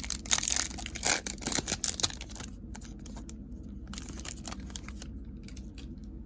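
Wrapper of a Topps Chrome baseball card pack being torn open and crinkled for about two and a half seconds, then a few light clicks and rustles as the cards are handled.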